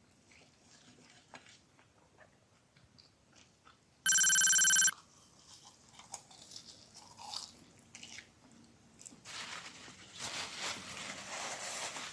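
Eating sounds: quiet chewing and small clicks, then a few seconds of louder noisy crunching near the end. About four seconds in, a loud electronic beep lasts just under a second.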